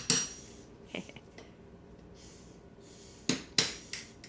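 Hammering on a plastered wall to break it open: a sharp strike at the start, a lighter one about a second in, a pause, then a quick run of about four strikes from about three seconds in.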